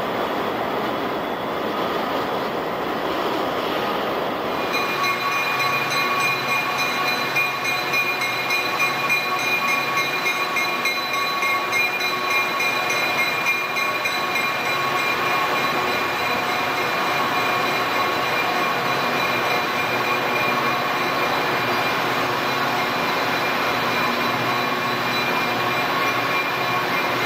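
Diesel locomotives running for the first few seconds. Then a Metra diesel locomotive and its bilevel coaches roll past a station platform: train rumble with a steady high whine running over it.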